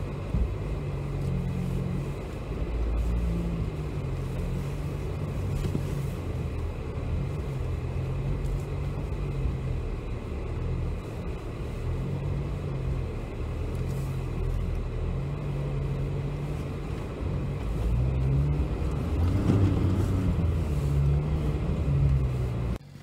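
Dacia Duster's engine running under load as the car drives over a rough dirt trail, with a steady rumble whose pitch rises and falls with the revs. It gets louder with a climb in revs about three-quarters of the way through.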